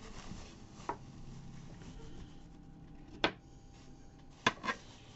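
Knife chopping the ends off a zucchini on a wooden table: a few sharp, separate knocks, the loudest about three and four and a half seconds in.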